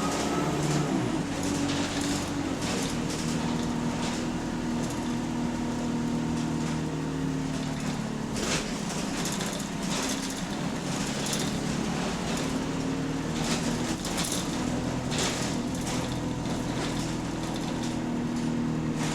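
Bus engine and drivetrain heard from inside the saloon, running under load, its pitch rising and falling as the bus changes speed. Short knocks and rattles from the body come every second or two in the second half.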